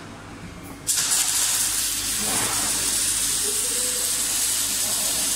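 A loud, steady hiss that starts suddenly about a second in.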